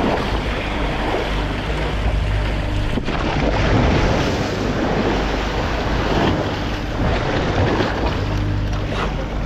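Sea water washing and splashing around a boat's stern, with wind buffeting the microphone, over a steady low hum from the boat's machinery.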